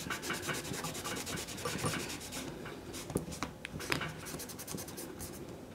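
A cloth scrubbing cleaner over a corroded metal radio chassis to clean off the corrosion. Quick back-and-forth rubbing strokes for about the first two and a half seconds, then slower, scattered strokes.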